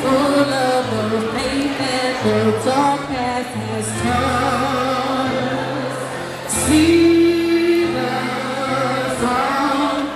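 Woman singing solo into a microphone over instrumental backing music, holding one long, loud note about halfway through.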